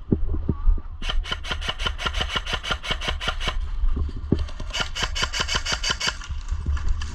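Airsoft gun firing on full auto in two bursts: a rapid rattle of shots starting about a second in and lasting about two and a half seconds, then a shorter burst about five seconds in.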